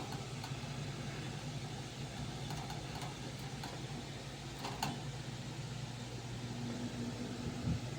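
Steady low mechanical hum, with a few faint short sounds around the middle.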